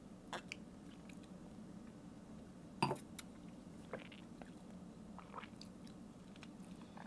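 Faint mouth and lip sounds of people sipping and tasting a cocktail over a low steady room hum, with one sharper knock just before three seconds in as a stemmed cocktail glass is set down on a wooden counter.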